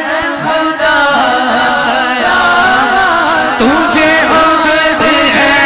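Male voice singing a line of an Urdu hamd through a microphone, in long, wavering, drawn-out notes that glide up and down.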